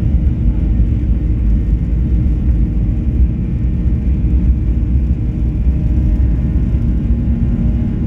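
Steady cabin rumble of a Boeing 737-800 heard from inside the passenger cabin: its CFM56-7B engines and the airflow over the fuselage, deep and even, with a faint steady hum above it.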